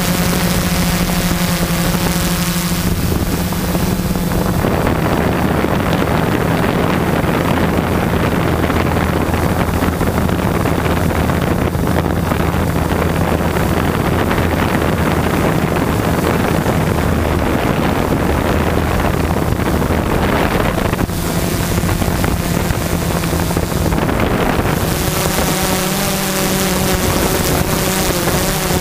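Quadcopter's brushless motors (MultiStar 2212 920kv) and 12-inch carbon-fibre props, heard from the onboard GoPro: a steady buzzing hum mixed with wind rush. About four seconds in, the hum drops lower and the rushing grows. The higher, steadier hum comes back near the end.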